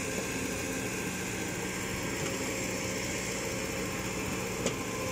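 Caterpillar E120B excavator's diesel engine running steadily, with a single sharp click near the end.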